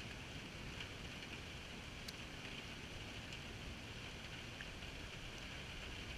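Steady rain falling on puddles and wet ground close to the camera, with a few sharp ticks of single drops, the clearest about two seconds in.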